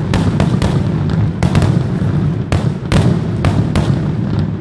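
Aerial fireworks going off in quick succession: sharp bangs about two a second over a continuous low rumble.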